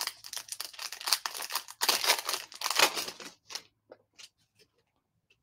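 A trading-card pack's wrapper being torn open and crinkled, a dense crackling rustle that is loudest midway and gives way to a few light ticks about four seconds in.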